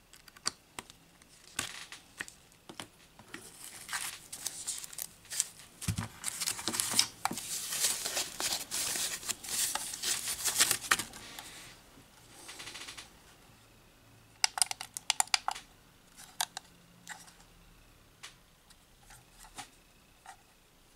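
Unboxing handling noise: foam packaging wrap rustling and crinkling as it is pulled from a cardboard box, loudest through the middle, with scattered clicks and knocks of handling. A quick run of sharp clicks comes about fifteen seconds in.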